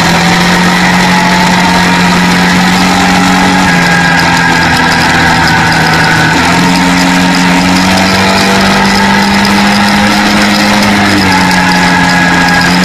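Quad (ATV) engine running at a steady cruise on the road, its note stepping down, up and down again a few times as the throttle changes, with wind rushing past.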